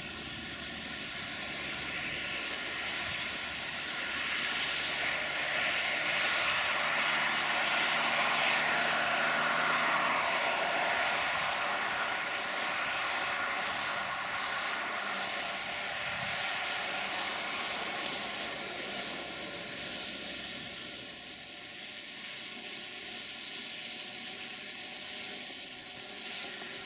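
Multirotor drone's propellers buzzing steadily with a whining hum. It grows louder a few seconds in, then slowly fades.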